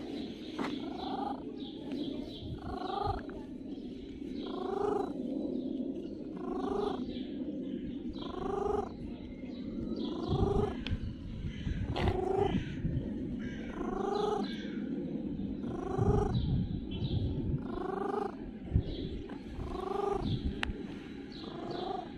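Cat meowing over and over, one short meow rising in pitch about every two seconds, with a steady purr beneath while it is stroked.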